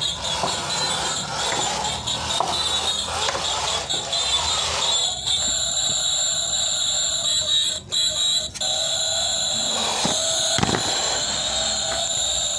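Small electric drive motors and gears of a toy RC truck whining as it drives across a concrete floor. The whine is steady and high, with a short break about eight seconds in and a brief dip and rise in pitch shortly after.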